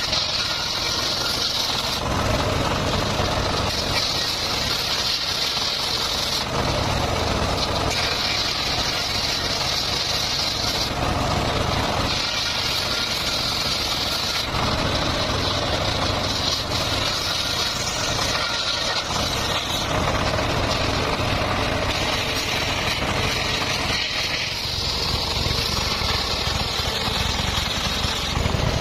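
Circular saw running steadily, with a higher cutting whine that comes and goes every few seconds as pieces are fed through the blade.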